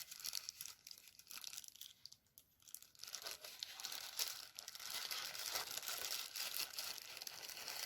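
Packaging crinkling and rustling as it is handled, in sparse crackles at first and more continuous from about three seconds in.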